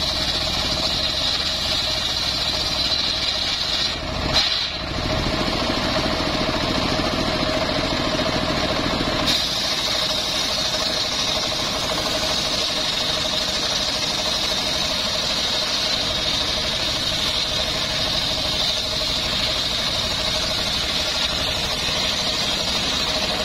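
Circular sawmill blade ripping lengthwise through a log of old johar wood, driven by its engine, with a steady high whine over the running motor. There is a brief dip and knock about four seconds in.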